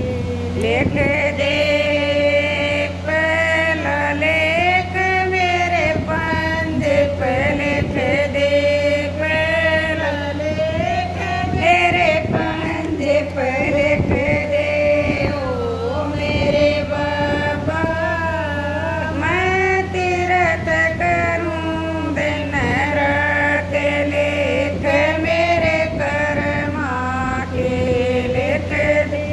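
Women singing a Hindi devotional bhajan, a slow wavering sung melody that runs without a break, over a steady low hum.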